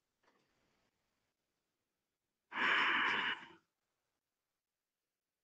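A person's long, audible exhale, a breathy sigh lasting about a second, beginning about two and a half seconds in.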